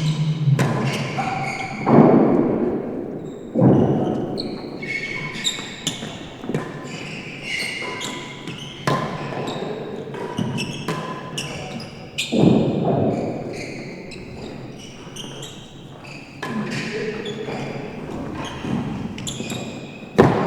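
Real tennis rally: a string of irregular sharp knocks as racquets hit the solid ball and it strikes the walls and floor, echoing in the large enclosed court. The loudest come about two seconds in, just before four seconds, and about twelve seconds in.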